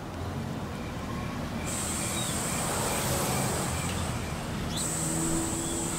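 A minibus engine running at the stop, a steady low hum that grows slightly louder toward the middle.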